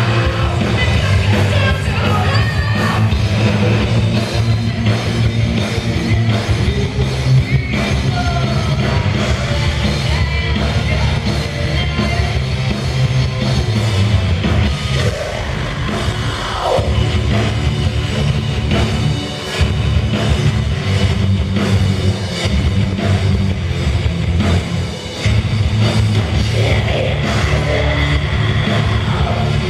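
Live heavy rock band playing loud, with a woman singing lead over distorted electric guitar and a full band.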